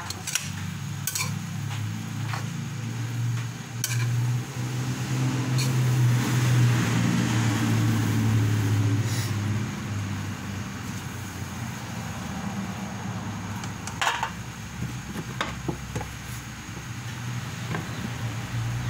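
Metal ladle stirring and tossing rice noodles in a metal wok, with scattered scrapes and knocks against the pan. Under it runs a steady low hum that swells for several seconds mid-way.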